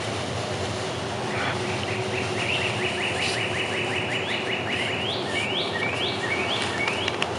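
A songbird singing: a fast trill of repeated short notes for about three seconds, then about four slower, sweeping notes. Steady low background noise runs underneath.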